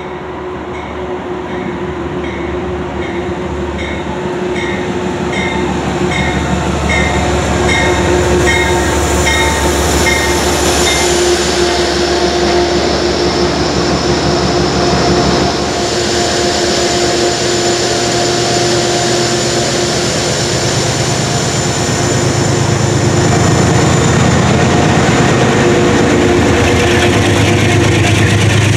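Metro-North GE P32AC-DM diesel locomotive coming in with its bell ringing about twice a second, which stops about eleven seconds in. Its engine and wheels grow louder as it passes close, and the diesel loads up heavily in the last few seconds as it pulls the train away.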